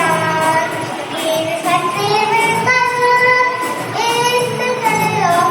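Young children singing a song, holding long notes that slide from one pitch to the next.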